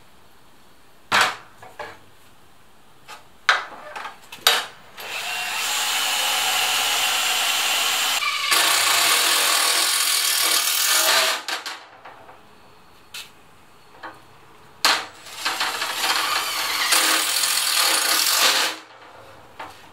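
Cordless drill boring holes through a sheet clamped on a workbench, in two runs of about six and three seconds. Sharp knocks from handling the plates come before the first run and just before the second.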